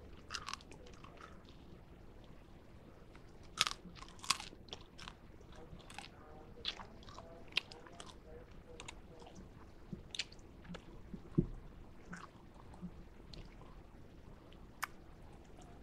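A person chewing a freeze-dried sour gummy worm close to the microphone: irregular small crunches and clicks, with a few sharper crunches around four seconds in and again a little past the middle. The candy is crisp outside but still partly gummy inside, so it is slow to chew.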